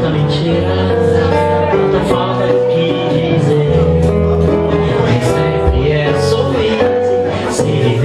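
A man singing while strumming an acoustic guitar, held sung notes over steady strummed chords.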